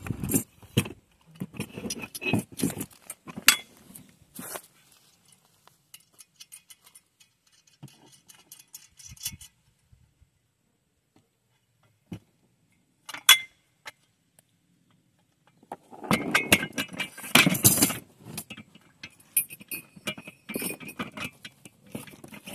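Scattered metallic clinks and rattles of nuts, bolts and aluminium solar-rack parts being handled during assembly, with a quiet stretch midway and a denser clatter about two-thirds of the way through.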